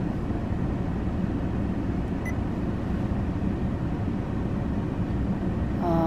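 Steady low hum of a car cabin, with two short electronic beeps from the touchscreen navigation unit as it is tapped: one right at the start and one about two seconds in.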